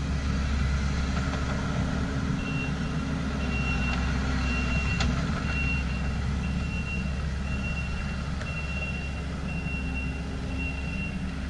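Kawasaki KLX pit bike's small four-stroke single-cylinder engine idling steadily. A high beep, repeating about once a second, starts a couple of seconds in.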